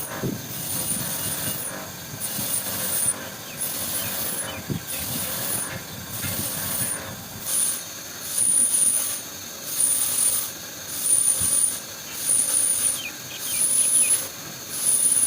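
Pressurised jet hissing in repeated bursts, about one every 1.3 seconds, with a high whistle in each burst; the bursts grow louder about halfway through.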